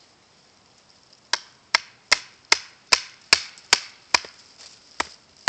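Wooden baton striking the spine of a Habilis Bushtool knife (5-inch, 1055 carbon steel blade) to drive it down through a piece of wood. Easy taps start a little over a second in and go on in an even rhythm of about two and a half strikes a second.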